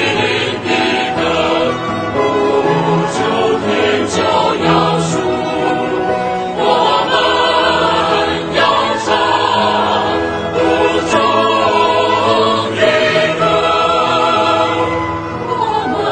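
Choir singing a Mandarin Christian hymn with musical accompaniment; the words sung include 我们要唱 and 我们要去见主.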